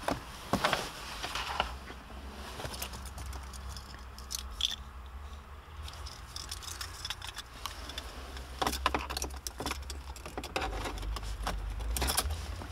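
Car keys jangling on their ring, with small clicks and scrapes as a hand handles them. There is a cluster of clicks about nine seconds in and another near the end as the key is brought to the ignition.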